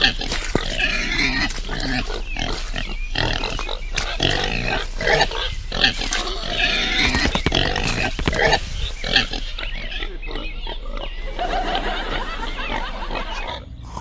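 Pigs grunting in a dense, unbroken run of short, irregular calls, dipping briefly just before the end.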